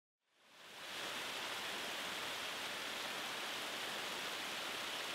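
Steady rush of water cascading down a stacked-rock waterfall, fading in from silence over the first second.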